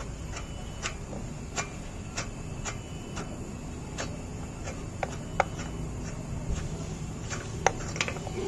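Light metallic clicks and taps, roughly one every half second at first and then more scattered, as the wheel nuts are unscrewed and handled with an L-shaped wheel brace.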